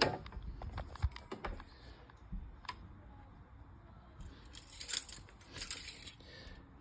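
Quiet handling sounds during an engine oil dipstick check: a few light clicks and taps, then short rustling scrapes about five seconds in as the dipstick slides out of its tube.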